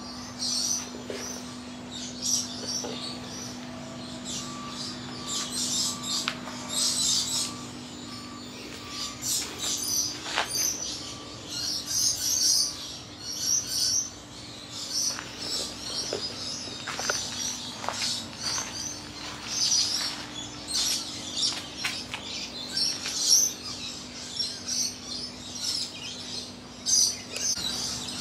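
Many birds chirping and calling in quick, repeated short notes, over the steady low hum of an air-conditioning unit.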